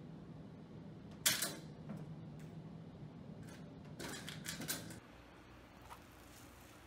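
Vertical window blinds clattering as a cat jumps onto them and climbs: one sharp rattle about a second in and a quick run of clacks around four seconds in.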